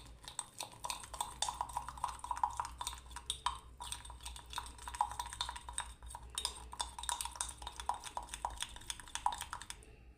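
A spoon stirring and beating a mixture of pine resin, powdered sugar and oil, clinking rapidly against its container, with a short pause about three and a half seconds in.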